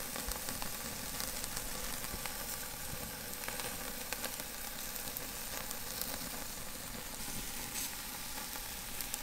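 Tomahawk ribeye steak searing over very hot charcoal on a kettle grill, sizzling steadily with small crackles.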